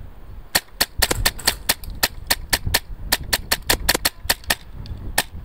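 Airsoft rifle firing a fast string of single shots, about five sharp cracks a second for some four seconds, then one last shot near the end.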